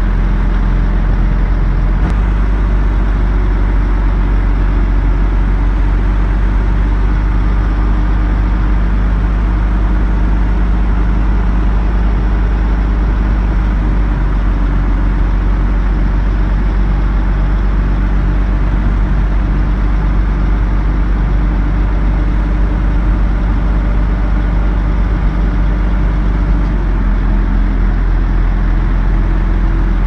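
Heavy diesel engine of earthmoving machinery running steadily, its note shifting about two seconds in and again near the end.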